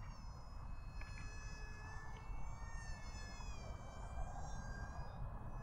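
Faint high whine of the Eachine Mini Wing Dragon's small electric motor and propeller in flight. It comes in about a second in and its pitch wavers slightly as the throttle changes. A low rumble of wind on the microphone lies underneath.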